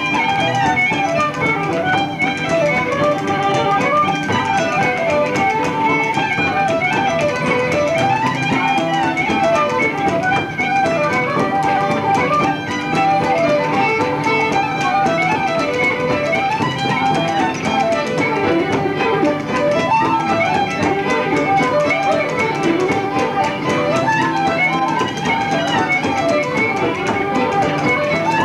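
Irish traditional session music: several instruments playing a tune together in an unbroken run of quick notes.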